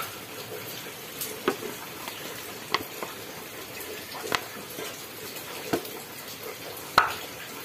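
About six light, sharp clicks and taps, unevenly spaced over a steady hiss, from handling and tapping the small parts of a diesel fuel injector nozzle to free a stuck spring shim; the loudest tap comes near the end.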